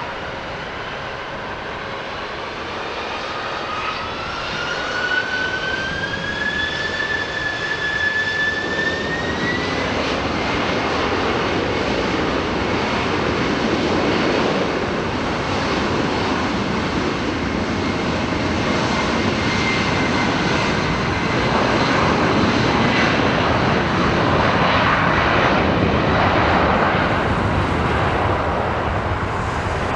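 Widebody jet airliner's engines spooling up to takeoff thrust, a whine rising in pitch over the first ten seconds and then holding, as the jet noise grows louder through the takeoff roll.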